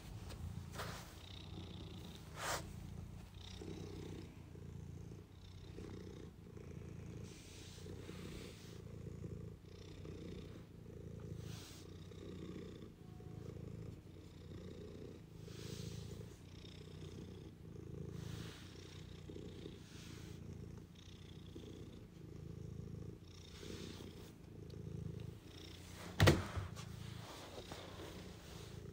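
Tabby cat purring steadily as it is stroked, the purr swelling and fading every second or two. A sharp click near the end.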